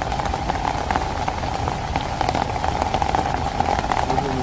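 Rain falling in forest, a steady patter of many scattered drops, over a steady even drone.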